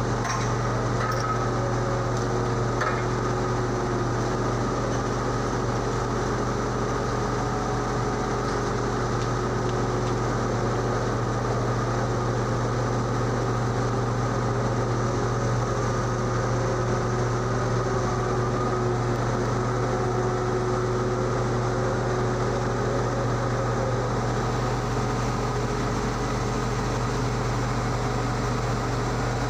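Steady low drone of diesel machinery, with faint whines rising and falling over it.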